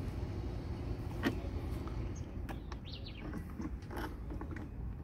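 Needle-nose pliers clicking and scraping against a plastic RV low-point drain fitting as they grip and twist it, with a few sharp clicks and a couple of short high squeaks, over a steady low rumble.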